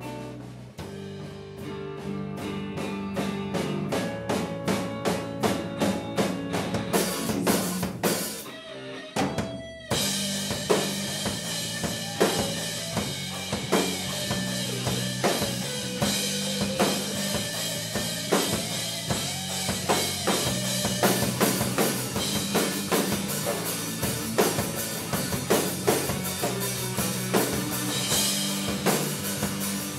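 Live rock band playing an instrumental passage of an original song: drum hits over sustained bass notes quicken into a build-up, break off briefly about nine seconds in, then the full band with drum kit crashes back in and plays on.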